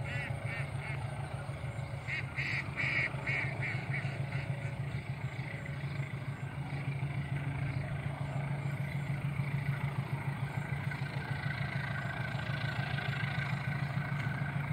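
A diesel engine runs steadily with a low, pulsing hum that gets louder over the last several seconds. In the first few seconds, two clusters of short, quick, quack-like calls sound over it.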